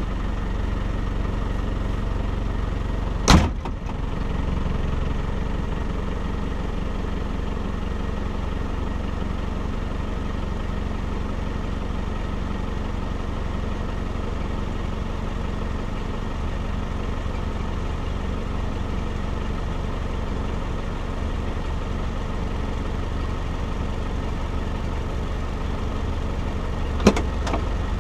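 Off-road vehicle's engine idling steadily while standing still, with a single sharp knock about three seconds in and a couple of clicks near the end.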